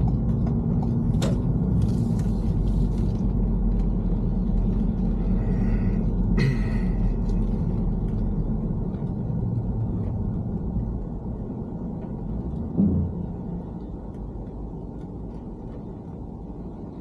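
Road and engine rumble heard from inside a moving car, growing quieter over the second half, with a short thump near the end.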